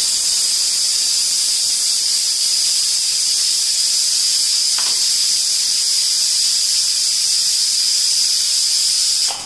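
Aluminium pressure cooker whistling: a loud, steady jet of steam hiss with a high whistle tone running through it, cutting off abruptly near the end. It is the cooker venting at full pressure while mutton cooks inside, one of the 4 to 6 whistles needed to soften the meat.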